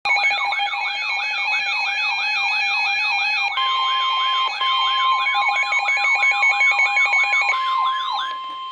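Electronic emergency alert tones: a siren-like tone wailing up and down about twice a second over steady beeping tones, with a long steady alert tone joining a few seconds in and carrying on after the wailing stops near the end. This is the attention signal that opens a severe thunderstorm warning broadcast.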